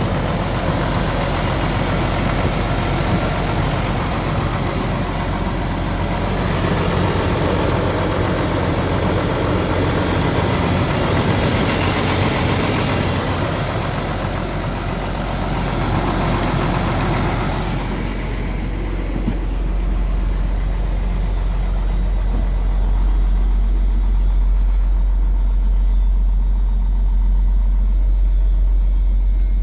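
Ford F-700's 6.6 turbo diesel engine running steadily. About two-thirds of the way through, the higher hiss falls away and a deep, steady low drone remains.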